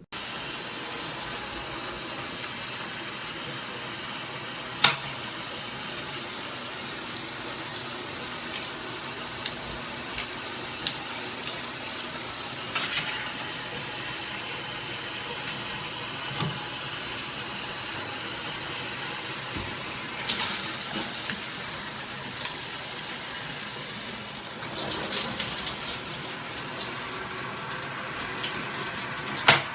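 Water spraying steadily from a dual shower head. There is a sharp click about five seconds in, and the spray gets louder and hissier for a few seconds starting about twenty seconds in.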